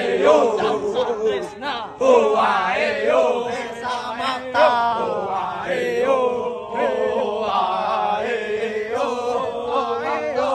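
A group of young men chanting a running cadence in unison as they jog in formation, their voices holding long sung notes.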